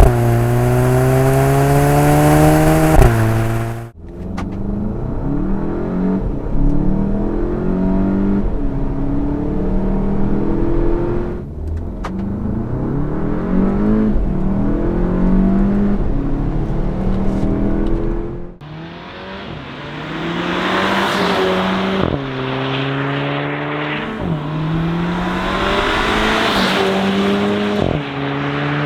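Volkswagen Mk7 GTI's turbocharged 2.0-litre four-cylinder under hard acceleration through its exhaust, the engine note climbing in pitch and dropping at each quick upshift. Several pulls are cut together.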